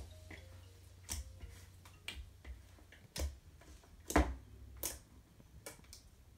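Thick, slightly sticky homemade glue slime being squeezed and kneaded by hand, giving short, sharp pops and squelches at irregular intervals about once a second, the loudest about four seconds in.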